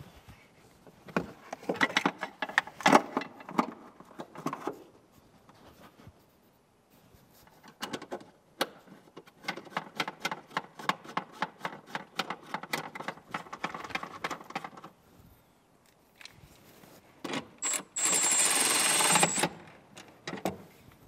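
Handling and mounting the car's ECU: irregular clicks and knocks, then a ratchet wrench clicking quickly and evenly for several seconds as its 10 mm bolt is run in. Near the end comes a short, loud motorised whir with a high whine.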